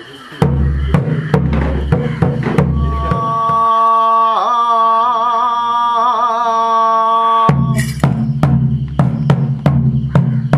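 Ritual drums beating, then dropping out for a long held note that wavers in pitch partway through, before quick drum strokes start again about seven and a half seconds in.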